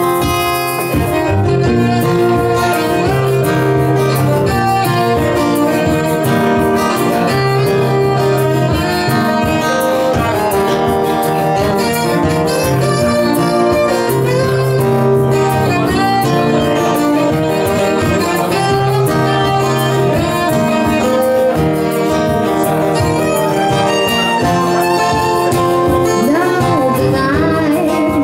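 Live acoustic band music: a violin playing over acoustic guitars, steady and unbroken.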